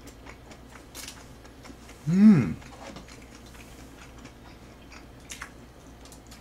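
Eating sounds: soft chewing and light clicks of a wooden spoon and chopsticks against the dishes. About two seconds in comes a short voiced 'mm' that rises and then falls in pitch.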